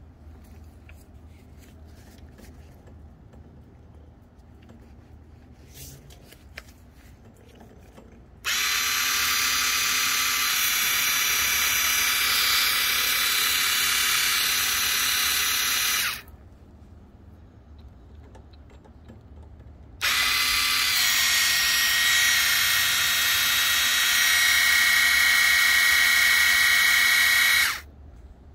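The 7.2-volt battery gear pump in a SprayMate Shower MAX spray gun whines steadily under the hiss of the spray. It runs twice, about eight seconds each time, a few seconds apart, starting and stopping sharply.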